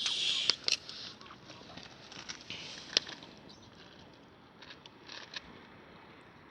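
Firewood burning in a campfire, crackling and popping over a soft hiss. The hiss and crackle are strongest in the first second, a sharp pop comes about three seconds in, and the crackles grow fainter after that.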